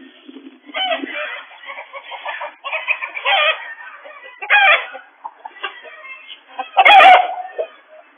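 Chickens squawking and cackling in four loud bursts, heard through a security camera's tinny microphone, with a sharp click about seven seconds in.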